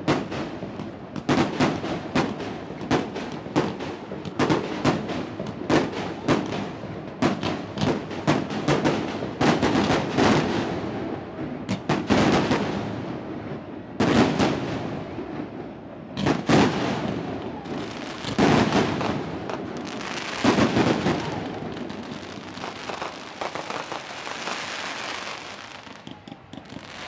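Aerial fireworks display: a rapid string of shell bursts, several bangs a second, turning from about two-thirds of the way in into a dense, continuous crackle that fades near the end.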